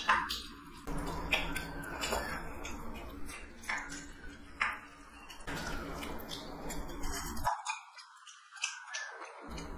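People eating rice and chicken curry by hand: chewing and mouth sounds, with irregular small clicks of fingers and food against steel plates.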